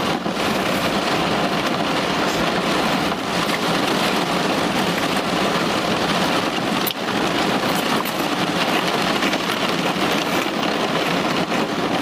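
Rain falling steadily on a car's roof and windows, heard from inside the car as an even hiss.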